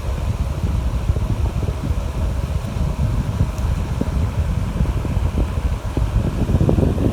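Steady low rumbling, crackling background noise with no bird calls.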